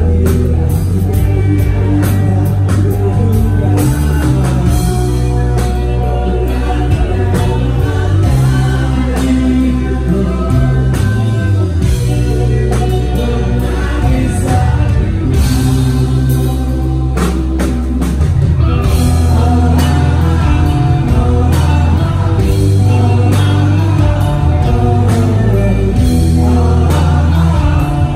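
Rock band playing live on stage: electric guitars and a drum kit, with a voice singing over them, loud and continuous.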